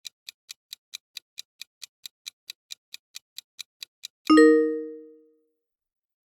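Quiz countdown-timer sound effect: even clock ticks, about four to five a second, stopping about four seconds in. A single ringing ding follows at once and fades out over about a second, marking the end of the countdown.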